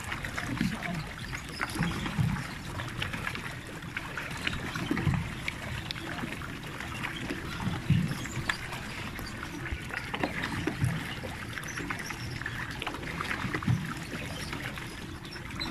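Water splashing and churning around a pedal-powered water bike moving across a lake, with scattered small crackles and irregular low thuds.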